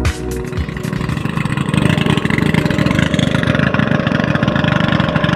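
Motorized outrigger boat's engine running steadily with a fast, even throb, growing a little louder over the first second or two.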